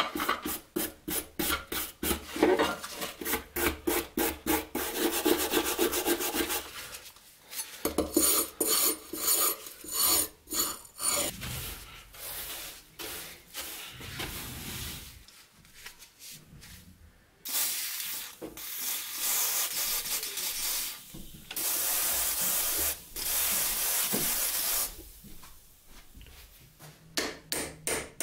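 Rust being scraped off an old knife by hand: quick rasping strokes, about four a second, at first with a blade, later a steel wire brush scrubbing the rust off in longer, steadier strokes.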